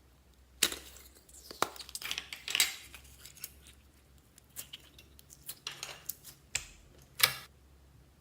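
Slime being worked by hand, giving irregular sharp pops and crackles, with the loudest ones about half a second in and near the end.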